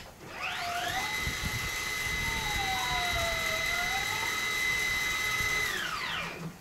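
Electric drive of a powered sliding door running as the door opens: a high whine that rises in pitch as it starts, holds steady, then falls away as the door comes to a stop.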